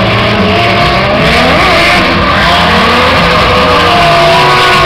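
Drift car engine revving hard, its pitch rising and falling as the car slides through the corner, with tyres squealing over it. Loud throughout.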